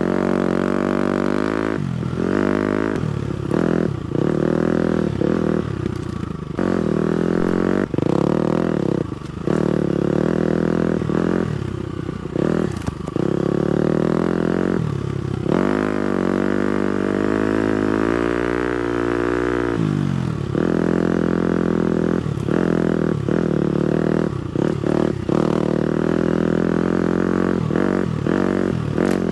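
250cc four-stroke dirt bike engine revving under riding, pitch rising and falling with the throttle, with many brief dips as the rider rolls off or shifts. Past the middle it climbs steadily in pitch for several seconds, then drops off sharply.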